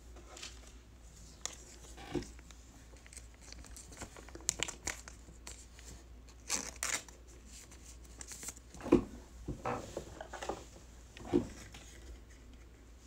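A trading card being slid into a clear plastic penny sleeve and handled with rigid plastic toploaders: soft, scattered plastic crinkling and rustling with a few light clicks.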